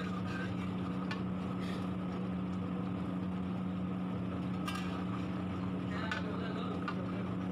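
A steady low mechanical hum, like a fan or burner, under a few light knocks and scrapes of a wooden spatula against a large pot of simmering curry.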